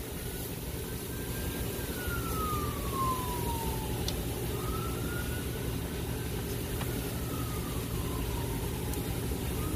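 A distant siren wailing, its pitch slowly falling and rising, over a steady low rumble.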